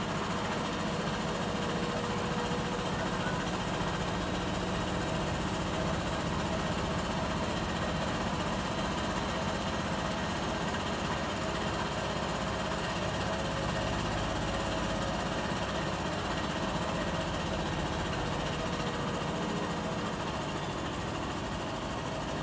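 Bosch WAT28370GB washing machine in its first intermediate spin, the drum spinning steadily to pull water from the load between wash and rinse. The motor and drum give a steady, even hum with a faint high whine over it.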